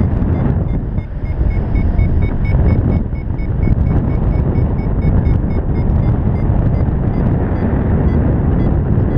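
Heavy wind rushing over the GoPro microphone in flight. Over it comes a paragliding variometer's rapid beeping, several short beeps a second, the tone a vario gives while the glider is climbing. The beeping starts about half a second in and fades out near the end.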